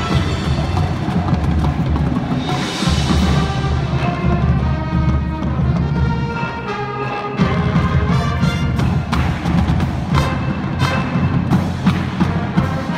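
School display band playing its marching show: wind instruments holding chords over a drumline, with steady drum strokes throughout and a bright crash about two and a half seconds in.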